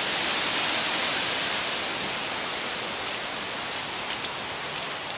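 Steady rush of running stream water, with two faint clicks about four seconds in.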